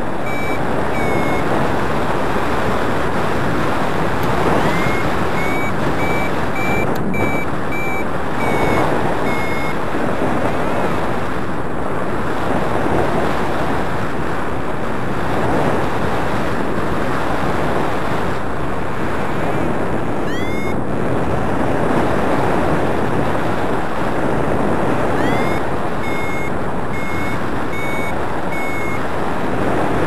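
Paraglider variometer beeping in several runs of short, high beeps, some opening with a rising chirp, the tone a vario gives in lift. Under it, a loud steady rush of wind over the microphone from the flight.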